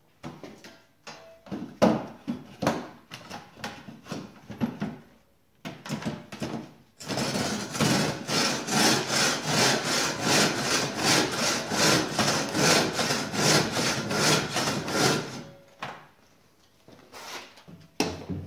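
Large coarse-toothed handsaw cutting through timber held in a wooden sawbuck. It starts with irregular short strokes and knocks, then settles into about eight seconds of steady, rapid back-and-forth sawing, which stops a couple of seconds before a few wooden knocks near the end.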